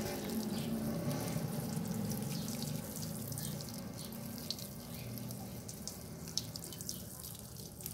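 Water sprinkling from the rose of a plastic watering can onto potted soil and leaves, splashing on wet concrete; a steady spray that eases slightly toward the end.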